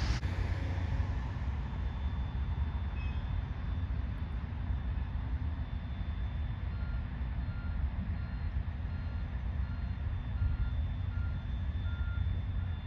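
A construction vehicle's reversing alarm beeps steadily, a bit more than once a second, starting about halfway through, over a steady low rumble of site machinery and wind.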